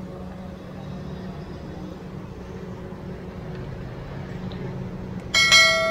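Steady low background hum, then, near the end, a sharp metallic clang that rings on for a moment: steel kebab skewers knocking against the metal charcoal grill as the cook handles them.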